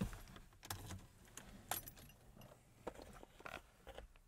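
Car keys jangling, with a string of faint clicks and rattles, as the key is put into the ignition and turned to switch on the dashboard.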